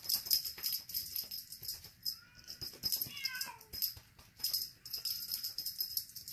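A rattling cat toy shaken in quick bursts, a dense high jingling. A silver Bengal kitten gives a couple of short, high mews about two and three seconds in.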